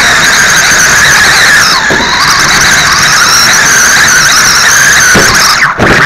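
Late model race cars running at speed on the track, their engines loud and high-pitched; the pitch dips and comes back up about two seconds in and again near the end as cars go past.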